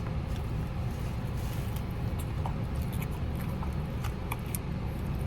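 Steady low outdoor rumble with scattered faint small clicks and crackles.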